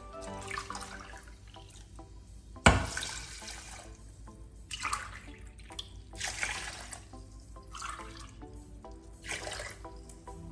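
Tap water running into a sink in several short bursts, the first starting with a sharp knock, over background music.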